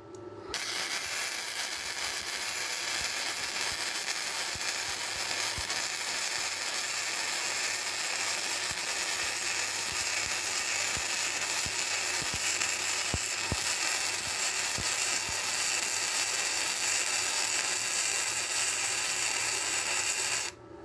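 Flux-core wire-feed welder arc crackling steadily as a bead is run. It starts about half a second in and cuts off just before the end.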